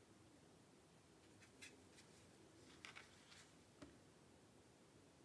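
Near silence, with a few faint, brief scratches of a paintbrush working watercolor paper.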